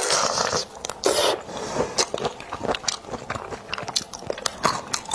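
Close-miked eating of raw shrimp and vegetables in spicy sauce: a wet sucking slurp in the first second and a half, then many sharp, irregular crunching bites and chewing.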